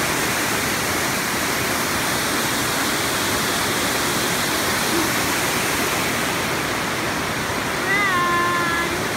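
Steady rushing roar of Amicalola Falls, water cascading down the rock face close by. A brief pitched call cuts through near the end.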